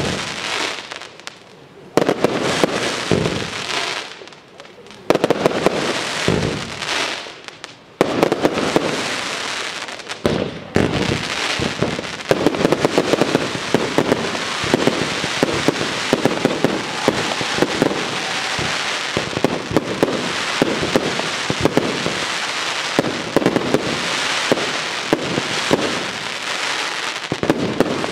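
Fireworks display: aerial shells going off with loud bangs about every three seconds, each dying away. From about ten seconds in they give way to a dense, continuous barrage of rapid bangs.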